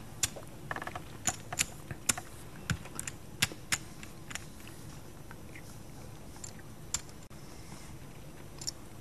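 Poker chips clicking: a scatter of light, sharp clicks, busiest in the first four seconds and sparse after that.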